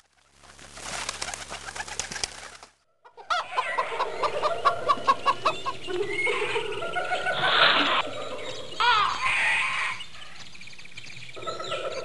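Cartoon bird sound effects: after a short burst of noise near the start, a dense mix of bird-like chirps, coos and clucks, with a quick run of pulsed calls and calls that glide up and down in pitch.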